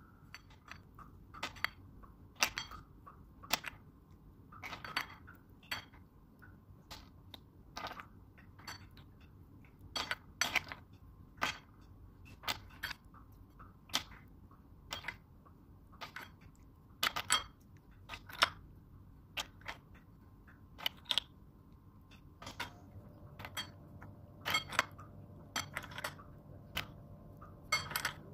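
Cooked sea snail shells clicking and clinking against a ceramic plate and each other as they are picked through, in irregular sharp clicks about one a second.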